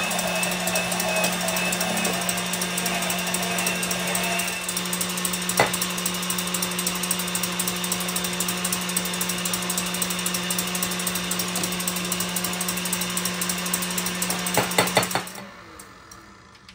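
KitchenAid stand mixer running with a steady motor hum, its wire whisk beating egg whites toward stiff peaks. A second, higher-pitched motor, the immersion blender whipping egg yolks and cream cheese, stops about four and a half seconds in. Near the end come a few clicks, and then the mixer motor cuts off.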